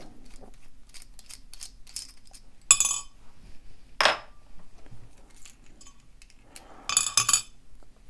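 Small metallic clicks and clinks as a Master Lock M530 padlock is taken apart: a screwdriver working a Phillips screw out of the shackle hole, then steel lock parts knocking against a metal tray. Two sharp clinks come about three and four seconds in, and a short flurry of clinks near the end.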